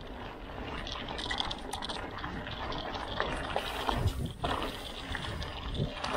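Mountain bike rolling along a forest trail: steady tyre and wind noise with small rattles and clicks, and a heavier knock about four seconds in.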